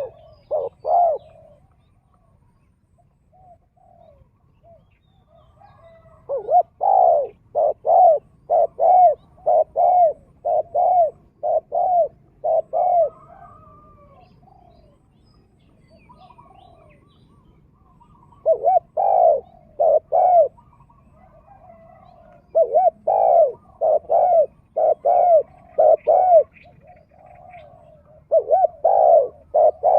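Spotted doves cooing: runs of deep, evenly spaced coo notes, the longest of about a dozen notes, then shorter runs after pauses, with faint chirps of small birds between.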